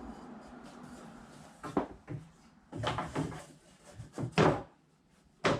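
Wooden bed-platform parts being test-fitted: a series of wooden knocks and short scrapes as the pieces are set and shifted into place, loudest about four and a half seconds in, with a sharp knock at the end.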